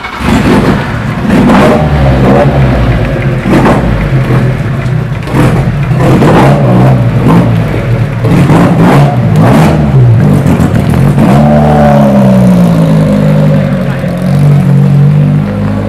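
Ferrari 750 Monza's four-cylinder racing engine, loud, blipped repeatedly with sharp revs as the car pulls away. About eleven seconds in the pitch drops and climbs again, then it settles into a steadier, lower run.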